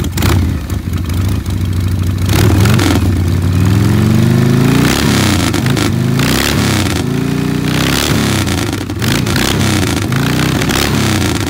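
Harley-Davidson V-twin chopper engine being revved hard while standing still, the pitch climbing and dropping again and again.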